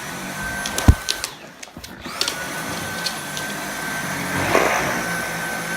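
Dyson V8 Animal cordless stick vacuum running on carpet with a steady high whine. A sharp knock comes about a second in; the motor then cuts out briefly and spins back up.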